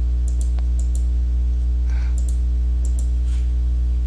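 Computer mouse clicking, a few short clicks, several in quick pairs, over a steady low electrical hum.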